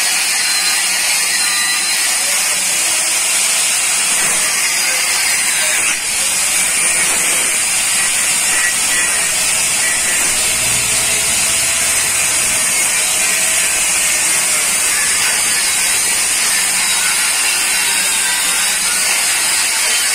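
Handheld electric angle grinder with its disc pressed against iron, grinding steadily with a loud, even, hissing whine, dipping briefly about six seconds in.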